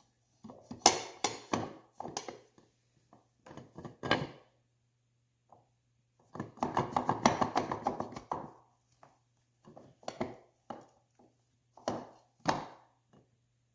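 Metal parts and hand tools knocking and clinking as a brake caliper is worked onto a three-wheeler's loose front brake rotor, with a fast run of clicks lasting about two seconds midway.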